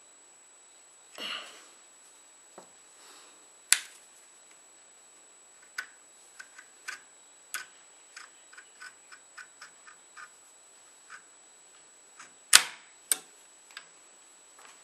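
Light clicks and ticks as the jaw screw of a flintlock's cock is tightened down to clamp the gun flint: a scattered run of small ticks, several a second in the middle, with a brief rustle about a second in and a few sharper clicks near the start and near the end.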